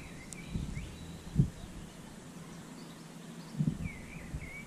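Small birds chirping in short bursts at the start and again near the end, over a faint outdoor background, with a few low thumps, the loudest about a second and a half in.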